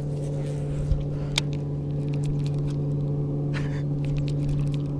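Steady motor hum from the bass boat, with a few faint sharp clicks from the rod and baitcasting reel as a jerkbait is worked.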